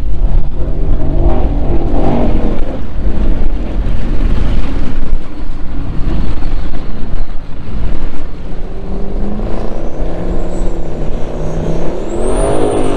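Offshore racing powerboat engines running hard as the boats pass across the water. Near the end one boat passes close, its engine pitch rising and then falling away. Wind rumbles on the microphone throughout.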